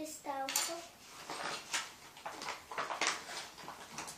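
Handling of a small box of plastic toys: irregular rustling, clicking and rattling of small hard pieces. A brief child's voice sounds just after the start.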